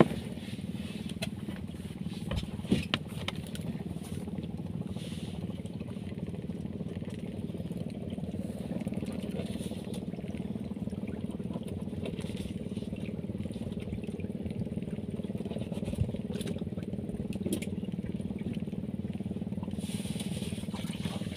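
Small boat engine running steadily at idle, an even, unchanging hum, with a few faint knocks.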